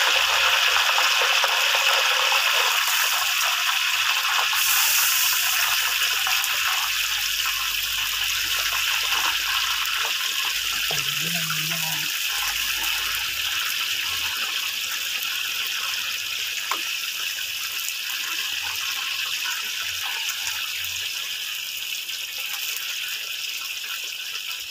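Raw kepok banana slices deep-frying in a wok of hot oil, a steady loud sizzle that slowly grows quieter.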